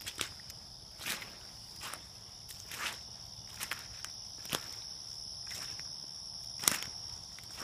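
Footsteps of a person walking, one step about every second, over a steady high-pitched trill of insects.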